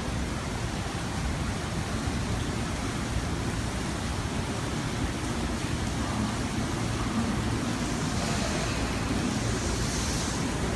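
Heavy rain pouring steadily, a dense hiss over a low rumble, with the hiss swelling near the end.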